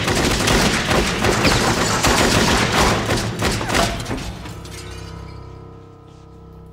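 A long burst of rapid gunfire mixed with shattering and crashing debris, dying away about four seconds in. After it comes a steady held music chord.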